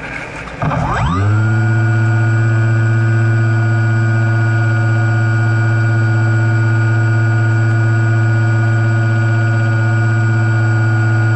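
Electric motor and propeller of a Multiplex EasyStar II RC plane, heard from the airframe. It dips briefly, spools up about a second in, then runs at steady throttle as an even whine.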